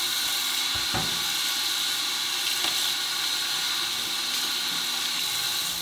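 Kitchen faucet running in a steady stream into a sink, the water splashing over gloved hands and the metal cabinet hardware being rinsed under it. A faint knock about a second in.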